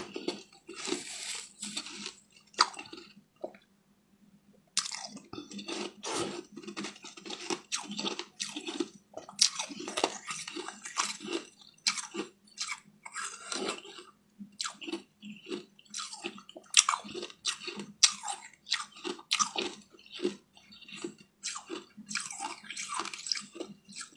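Close-up eating sounds: a person chewing, with wet smacks of the lips and tongue in a quick, irregular run of short clicks, pausing briefly about three seconds in.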